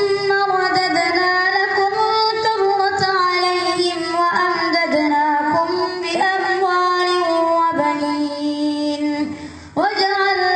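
A boy's voice reciting the Quran in melodic tajweed style, one long ornamented phrase held for about nine seconds, a short break for breath, then the next phrase starting near the end.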